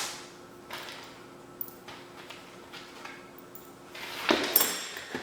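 Hand work on the mower's handle hardware: a few light clicks over a faint steady hum, then about four seconds in a louder run of metal clinking and scraping as tools and parts are handled.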